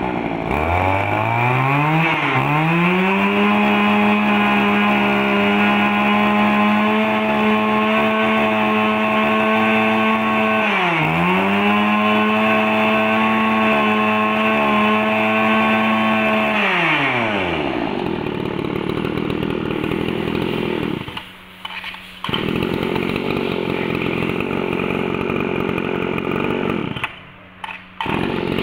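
Mitsubishi TL26 brush cutter's small two-stroke engine revved up to full throttle and held there. About eleven seconds in the throttle is let off briefly and opened again. Around seventeen seconds it is released, and the engine drops to a rougher, lower running sound that dips twice briefly.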